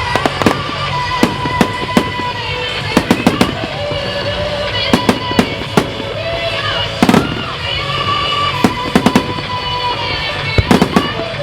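Fireworks going off in a string of sharp bangs, several in quick clusters of two to four, with music playing underneath.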